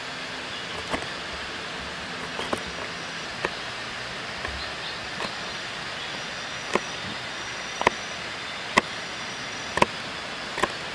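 Kitchen knife slicing garlic cloves on a cutting board: sharp taps of the blade striking the board, about one a second at an uneven pace. Behind them runs a steady rushing noise, the sound of the nearby river.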